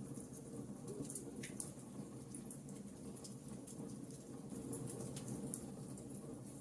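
Fire burning in a fireplace: a steady low flame rush with frequent small, irregular crackles and pops.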